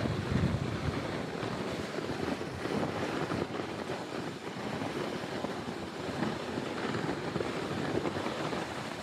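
Toboggan ride down the track: a steady rush of wind buffeting the microphone over an uneven low rumble from the sled running on the track.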